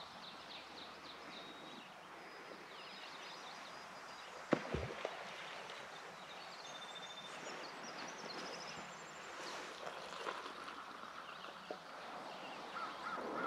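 Faint birdsong with thin high notes and trills. About four and a half seconds in there are two sharp knocks as a metal camp cook pot and its lid are handled.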